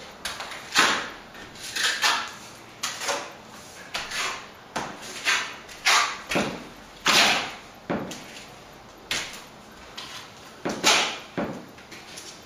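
Steel plastering trowel scraping across the wall as it spreads a white set coat of plaster: a string of short scraping strokes, one or two a second.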